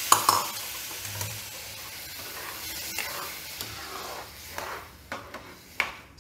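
Semolina, ghee and pineapple pieces sizzling in a hot pan just after warm water goes in, the sizzle dying away. A spoon stirs and scrapes through the wet mixture, with a few knocks against the pan near the end.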